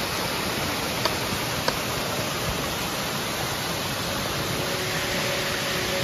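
Small waterfall and stream splashing down a mossy rock face: a steady, even rush of falling water.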